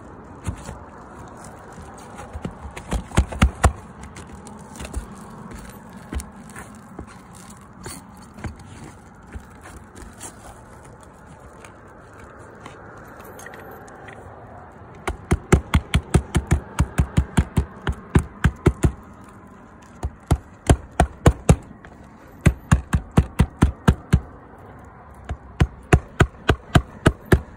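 Hammer driving roofing nails into the base of a new lead pipe-jack flashing. The blows come in quick runs of about four a second, in several bursts over the second half, after a few scattered knocks early on.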